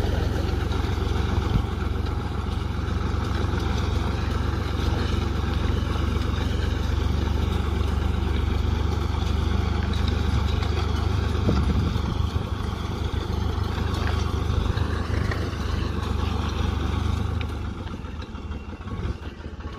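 Mini tractor's diesel engine running steadily with a low drone as it pulls a plastic mulch-film laying machine; the drone drops away near the end.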